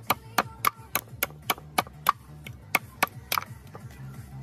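A heavy cleaver chopping into the husk and shell of a coconut on a wooden chopping block: a steady run of sharp cracks, about three a second.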